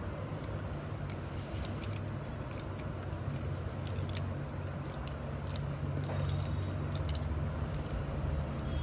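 Slate pencils giving scattered, irregular sharp clicks and crunches over a steady low hum.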